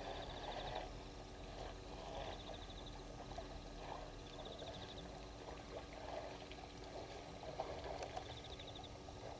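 Elephants drinking at a waterhole: faint, irregular splashing and pouring of water, coming in uneven bursts every second or so. A short pulsed chirp repeats about every second and a half.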